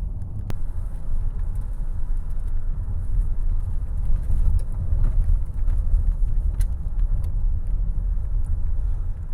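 Steady low rumble of a moving car's road and engine noise heard from inside the cabin, with a sharp click about half a second in.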